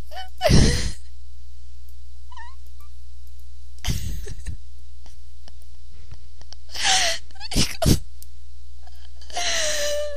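A person crying: sobbing breaths and gasps, two sharp sniffing intakes a little past the middle, and a drawn-out whimpering wail near the end, over a steady low electrical hum.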